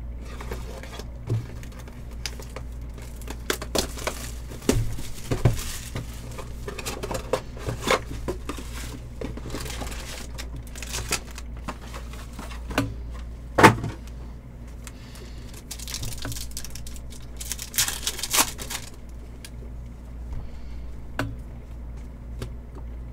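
Rustling and crinkling as a Panini Prizm WWE trading card pack wrapper is torn open and the cards are handled, with scattered light clicks and taps, the sharpest about fourteen seconds in. A steady low hum runs underneath.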